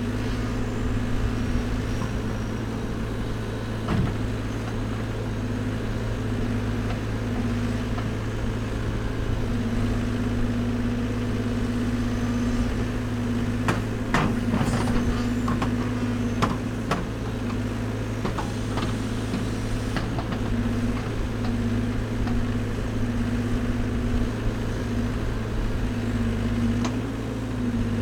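Caterpillar backhoe loader's diesel engine running steadily while the backhoe digs, its note swelling and easing as the arm works. A cluster of sharp knocks about halfway through as the bucket digs and dumps soil.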